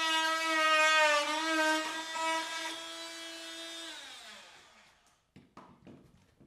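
Handheld high-speed power cutting tool whining steadily as it cuts the plastic center insert out of a truck grille, its pitch dipping briefly under load. About four seconds in it is switched off and winds down, falling in pitch, followed by a few light knocks as the grille is handled.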